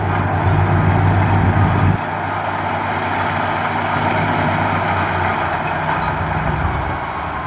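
Heavy diesel engines of dump trucks and a LiuGong crawler bulldozer running together in a dense machine din. The deep engine drone eases off about two seconds in.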